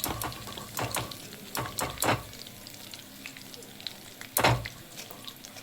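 Battered chicken pieces deep-frying in hot oil, a steady sizzle, with several sharp knocks. The loudest knock comes about four and a half seconds in.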